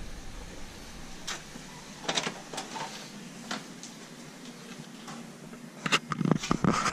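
A front door being unlocked and opened: a few sharp metal clicks from the deadbolt and lever handle, then a cluster of louder knocks and thuds near the end.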